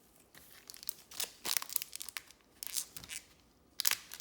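Foil trading-card pack wrapper crinkling and tearing as it is ripped open and handled, in irregular bursts.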